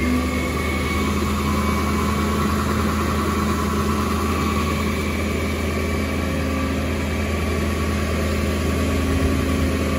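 Ford 7.3L Powerstroke turbo diesel running at a raised idle with the PTO engaged, driving the hydraulics as the Jerr-Dan rollback bed rolls back. A steady drone with a faint steady whine above it.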